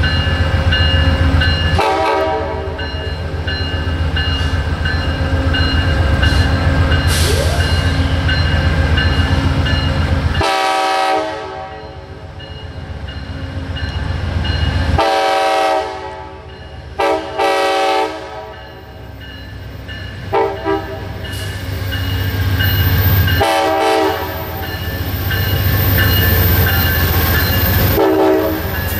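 Amtrak shuttle train's locomotive horn played in a long sequence of blasts: several long chords plus quick pairs of short toots about midway. It sounds over the loud, steady rumble of the train's diesel engine.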